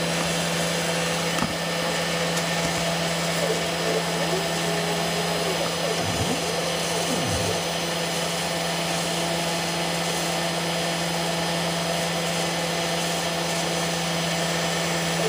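CNC router running a program: the Quiet Cut spindle motor spins with a steady hum and whine. The stepper motors drive the axes with a few short tones that slide up and down in pitch, about two and six to seven seconds in. Some vibration buzz rides on it, which the owner puts down to spare T-nuts sitting in the frame.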